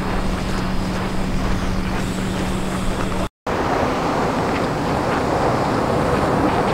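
Vintage MTV-82 tram running on snow-covered tracks, its rolling noise mixed with wind on the microphone. A steady low hum is heard until a brief cut about halfway through, after which the noise is slightly louder and even.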